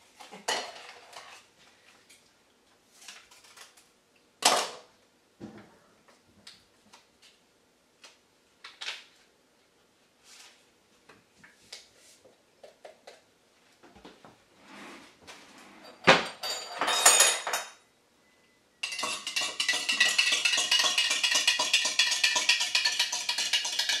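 Kitchen dishes and a utensil clinking and knocking now and then, with a sharp knock about four seconds in and a louder clatter near sixteen seconds. From about nineteen seconds in, background music with a wood-block beat.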